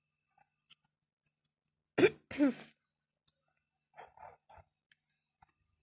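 A person coughs, a sharp burst and then a shorter pitched one about two seconds in, followed by a few faint short sounds.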